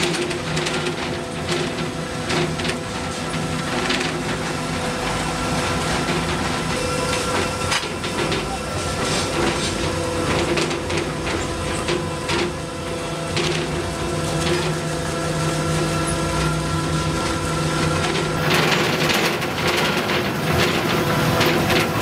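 Underground coal-mining machinery running: a steady mechanical hum with several held tones under a hiss. The hiss grows brighter about three-quarters of the way in.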